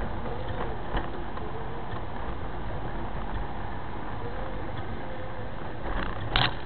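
Steady engine and road noise inside a moving car's cabin, picked up by a dashcam microphone. There is a faint knock about a second in and a sharper, louder knock near the end.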